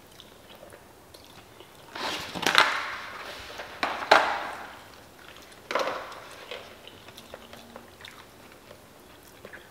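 Eating sounds: a few short, sharp crunching or scraping noises, about two, four and six seconds in, as takeout food is eaten with plastic forks from a plastic container. Between them, quiet room tone.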